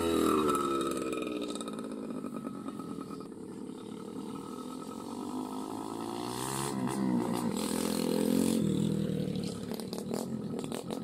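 Small underbone motorcycle engines riding past on a gravel track. One drops sharply in pitch as it passes close by at the start, and a second rises and then falls in pitch as it comes by about seven to nine seconds in.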